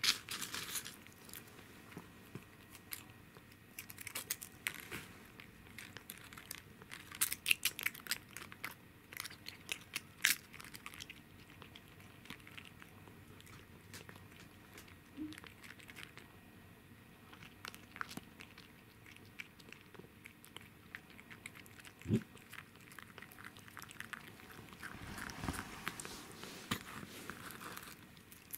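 A cat crunching and chewing dried bonito chips: a run of short crisp crunches, thickest in the first ten seconds, then sparser.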